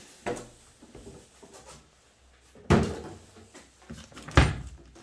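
Unpacked air hose reel and its packaging handled on a wooden workbench: a light knock just after the start, then two sharp thuds, one about halfway through and one near the end, with faint rustling between.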